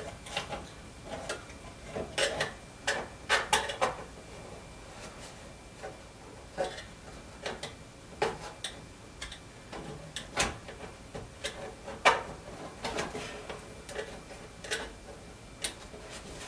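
Irregular small clicks, taps and scrapes of a screwdriver tip and fingers prying at a plastic clip and tape on a DLP TV's metal-and-plastic chip assembly, with a few sharper clicks about two to four seconds in and again near the middle.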